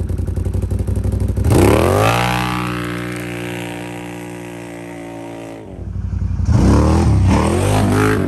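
Can-Am Renegade ATV's V-twin engine through a Big Gun EVO U Series exhaust: idling with a rapid, even pulse, then revving hard about a second and a half in as it pulls away, its note falling and fading with distance. After a sudden cut, it comes back loud, accelerating hard with the pitch climbing.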